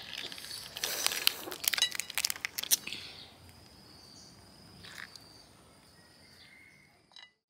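Cooked crayfish shells cracking and crunching as fingers break and peel them, a quick run of sharp cracks in the first three seconds, then only an odd click. Faint steady insect chirring underneath.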